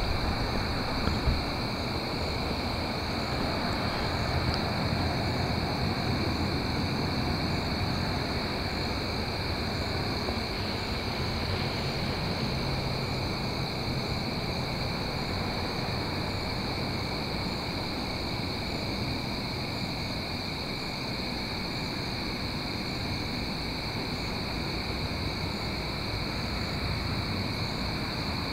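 Night chorus of crickets trilling steadily in two high, unbroken pitches, with faint regular chirps above them. A low rumbling hiss runs underneath, and there is a small knock about a second in.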